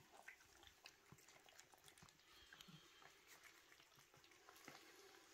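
Very faint sounds of cats eating wet cat food from bowls: scattered small clicks and smacks of chewing and lapping.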